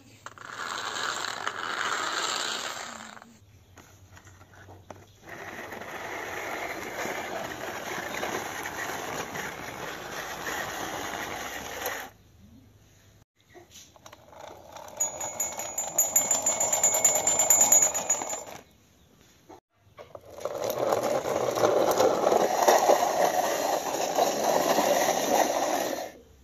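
Plastic toy vehicles pushed across a rough concrete floor, their plastic wheels rolling and rattling in four runs of a few seconds each with short pauses between. During the third run a thin high squeak sounds along with the rolling.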